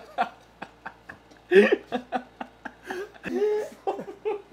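Men laughing in a string of short laughs and chuckles, the loudest about a second and a half in.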